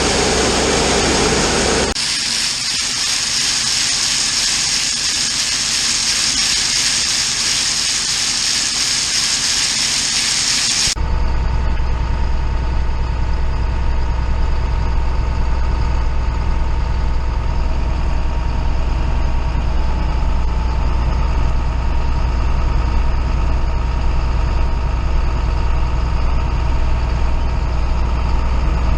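Harvest machinery running: a loud steady high hiss for the first third, then after an abrupt change a steady low diesel engine drone with an even hum.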